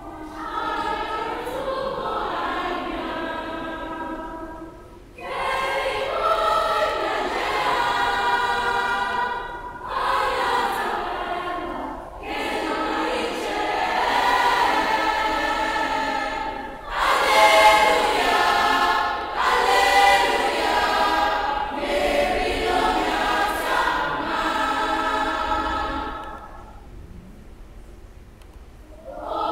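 Girls' school choir singing unaccompanied, in sung phrases broken by short breaths. Near the end the singing drops away for about three seconds, then starts again.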